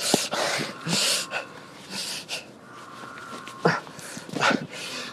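A man breathing hard close to the microphone, a run of short, irregular gasping breaths.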